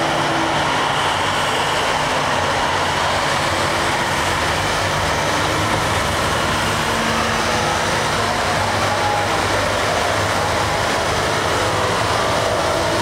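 Steady street traffic noise: the engines and tyres of vehicles on a wide multi-lane road, with a low engine hum under it.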